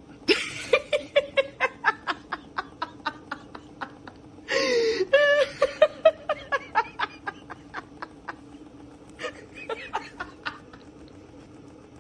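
A person laughing in a long fit of short, rhythmic laughs, about four a second, that slowly fade, with a louder outburst about five seconds in and a second brief burst of laughter near the end.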